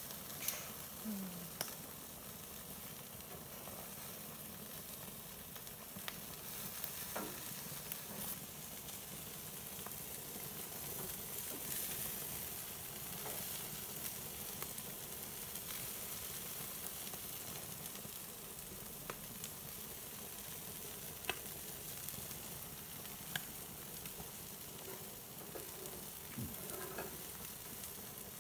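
Atlantic salmon steaks sizzling on a hot grill, a steady hiss of juices and oil on the grates. Scattered light clicks run through it, the first of them from metal tongs and a spatula turning the fish near the start.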